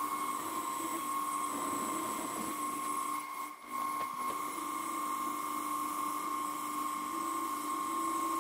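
Mini-lathe running on new spindle bearings while a carbide insert takes a cut along a cold rolled steel bar: a steady high-pitched whine that dips briefly about halfway through.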